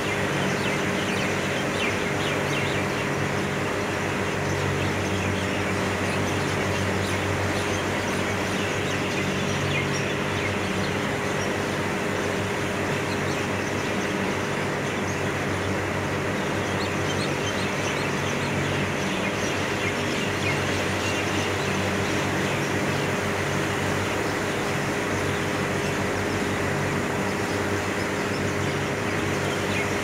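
Many herons calling at once from a crowded roosting colony, a dense, continuous chatter of short overlapping calls, over a steady mechanical hum.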